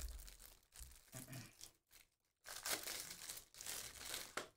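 Rustling and crinkling of trading cards and plastic pack wrapping being handled as a stack of cards is flipped through, in two stretches with a brief pause about two seconds in.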